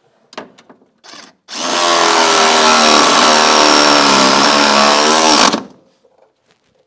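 A couple of short clicks, then a cordless impact wrench running for about four seconds, tightening a shock absorber's mounting bolt.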